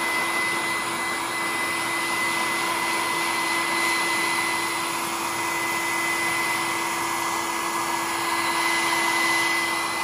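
Small handheld hot-air blower running steadily, a whir of rushing air with a steady motor whine, held on hook-and-loop strips to soften their adhesive.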